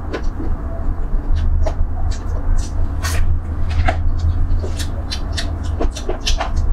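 Mouth sounds of eating tiger-skin chicken feet: irregular wet chewing and lip-smacking clicks, several a second, over a steady low hum.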